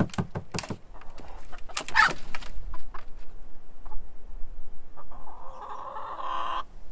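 Pet hens clucking and squawking inside a wooden backyard coop as hands reach in after them, with a few knocks in the first second and one long squawk of about a second and a half near the end.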